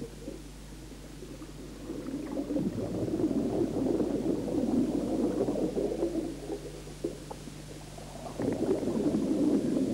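A scuba diver's exhaled breath bubbling and gurgling underwater, over a steady low hum. There are two exhalations: one from about two seconds in to past the middle, and the next starting near the end.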